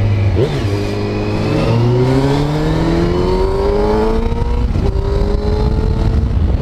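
Motorcycle engine accelerating under the rider, its pitch rising steadily for several seconds, then dropping at a gear change about five seconds in and rising again. Wind rumbles on the microphone underneath.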